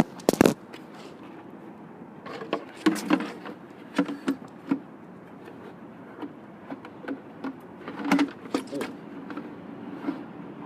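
Handling clatter: a loud clatter right at the start, then scattered knocks and clicks, bunched in two spells, over a steady low hum.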